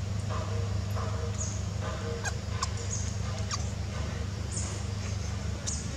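Scattered short, high chirps and a few quick falling squeaks from small animals, over a steady low hum.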